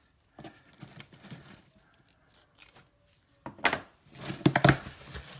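A shipping package being handled: a few faint rustles and clicks, then louder crinkling and scraping of the packaging from about three and a half seconds in.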